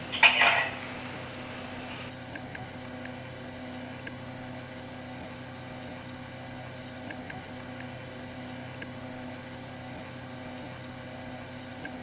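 A short, loud sound in the first second, then a steady low hum with a few faint, scattered ticks.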